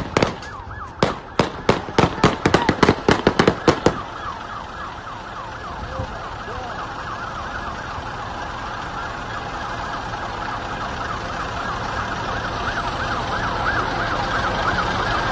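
A rapid volley of more than a dozen gunshots over about three seconds, then a police siren yelping in quick rising-and-falling sweeps, growing louder as it approaches.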